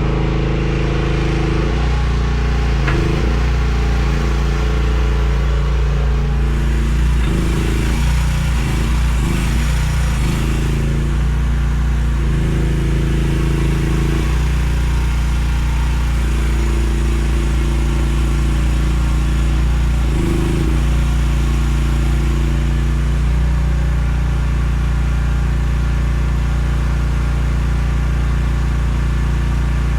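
Small diesel engine of a mini excavator running steadily, its note shifting several times as it is worked.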